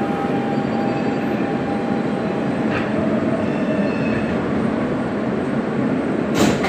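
Siemens R160B subway car coming to a stop in the station: a low rumble under a steady electrical whine. A short, sharp burst of noise comes near the end.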